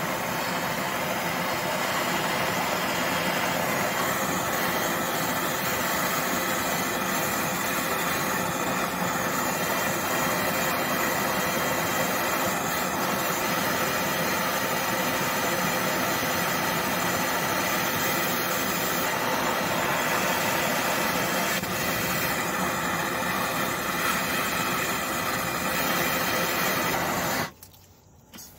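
Handheld torch on a Bernzomatic MAP-Pro gas cylinder burning with a steady, loud hiss while heating a broken exhaust manifold bolt to free it. The flame is shut off suddenly about a second before the end.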